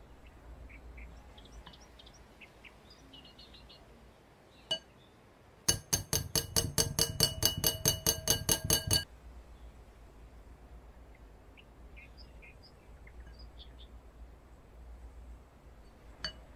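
Metal utensil tapped quickly and repeatedly against the rim of a glass mixing bowl, about five ringing clinks a second for some three seconds, shaking excess melted chocolate off a coated sponge cake square. One single clink comes a little before the run and another near the end.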